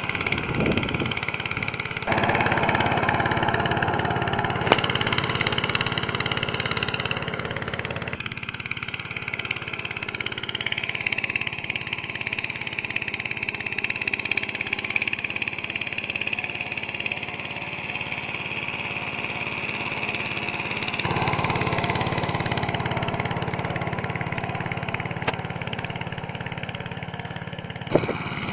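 Engine of a Motor Sich MB-9E walk-behind tractor running steadily under load as it pulls a spike harrow across tilled soil. Its level and tone jump abruptly several times.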